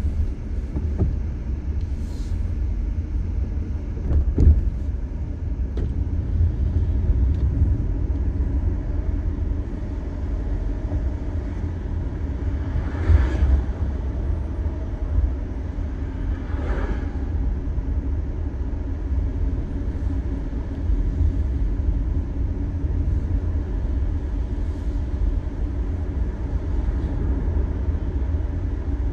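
Low, steady road and engine rumble of a car driving on a wet road, heard from inside the cabin. A light knock comes about four seconds in, and two brief hissing swells come near the middle.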